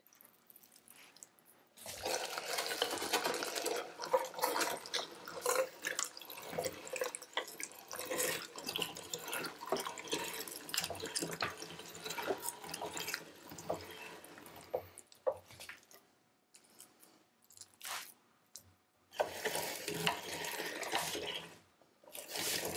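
Manual No. 22 meat mincer being hand-cranked, with wet squelching and crackling as meat is forced through the plate. Its grinding runs for most of the first two-thirds, pauses, then comes in short spells near the end.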